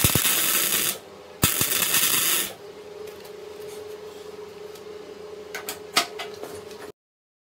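Two short welding tacks on a steel frame, each about a second of loud crackling hiss starting with a click. A steady hum follows, with a few light metallic clicks near the end.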